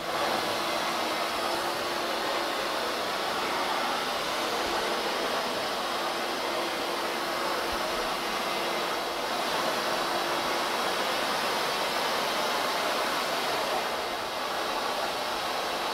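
Cylinder vacuum cleaner running steadily as it is pushed over a hard corridor floor: a constant rushing noise, with a faint hum underneath that fades out about two-thirds of the way through.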